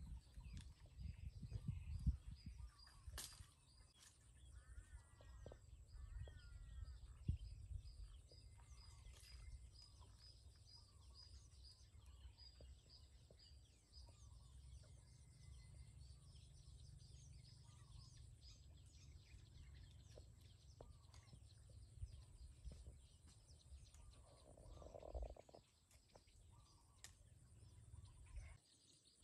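Faint outdoor ambience: a steady high insect drone, a few bird chirps, and a low rumble.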